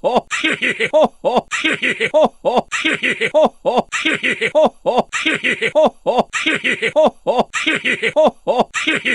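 A short "ohoho heheheha" laugh sound effect looped back to back, repeating about every 1.2 seconds. Each pass is a quick run of rising-and-falling laughing syllables with breathy bursts between them.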